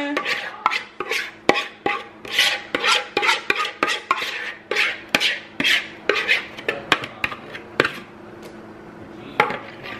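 A spoon scraping thick cornbread batter out of a mixing bowl into a glass baking dish, in quick repeated strokes, two or three a second. The scraping stops about eight seconds in, followed by a couple of sharp clicks.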